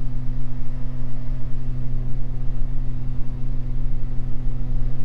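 Steady drone of a Beechcraft G58 Baron's twin six-cylinder piston engines and propellers in flight, an even low hum with no change in pitch.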